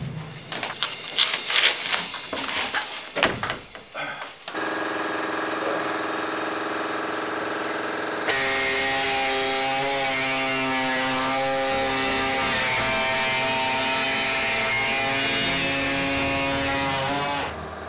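Knocks and clatter, then a handheld power tool starts about four and a half seconds in and runs steadily. From about eight seconds in it runs louder and harsher, cutting into the van's roof panel, and it stops just before the end.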